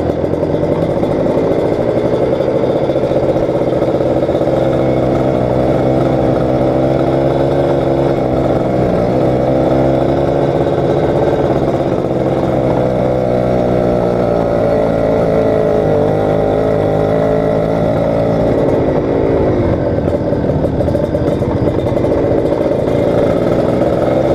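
Kawasaki Ninja RR two-stroke motorcycle engine running steadily under way, its pitch rising and easing gently as the throttle changes.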